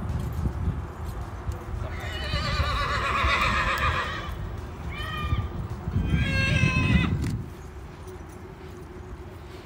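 A yearling horse whinnying: one long, quavering whinny about two seconds in, then two shorter calls. A low rumbling noise runs underneath until the sound drops away about two seconds before the end.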